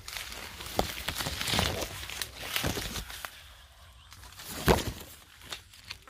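Leaves and twigs rustling and brushing as people push on foot through dense scrub, with footsteps on dry ground. One louder knock comes about three-quarters of the way through.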